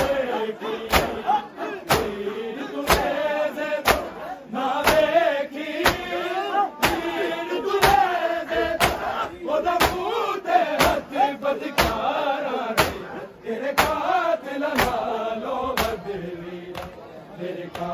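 A crowd of men chanting in unison over matam, the mourners' hands striking their chests together in a steady beat about once a second.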